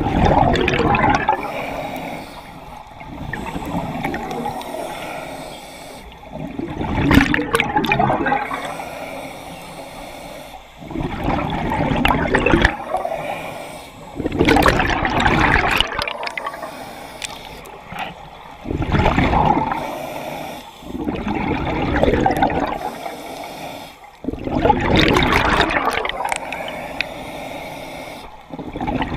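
Scuba diver breathing through a regulator underwater: a bubbling rush of exhaled air about every three to four seconds, each lasting a second or two, with quieter stretches between breaths.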